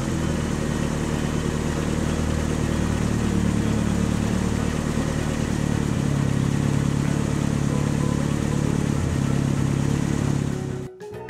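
Engine sound effect for a driving van: a motor running steadily, its tone shifting slightly about halfway through, and stopping just before the end.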